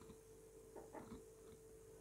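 Near silence with a faint steady hum, and a few faint soft scrapes about a second in from a wire whisk stirring cocoa powder into cake batter in a plastic bowl.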